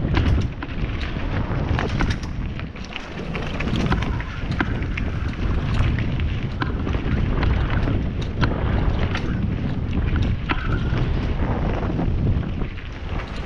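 Mountain bike riding fast down a dirt singletrack: wind buffeting the camera microphone and tyres rolling on dirt make a steady rumble, with frequent sharp rattles and knocks from the bike over bumps.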